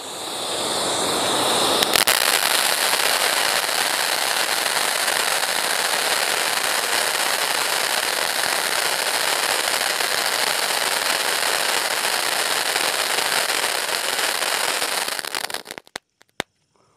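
Vanita 'Ding Dong' Diwali ground fountain firework spraying sparks with a steady hiss that builds over the first couple of seconds, with a single sharp crack early on. It sputters out shortly before the end.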